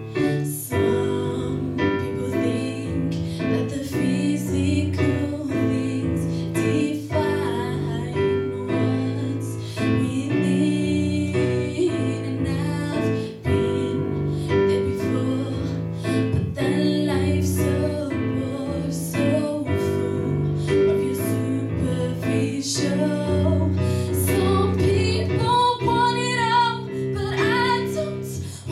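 A girl singing a song to a Casio Privia digital piano's chordal accompaniment. Her voice comes through more strongly, with vibrato, in the last few seconds.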